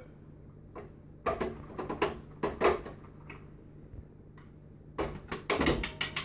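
A plastic blender jug knocking and clattering against a steel mixing bowl as breadcrumbs are tipped out, with a few separate knocks early on and a quick run of clicks and rattles near the end.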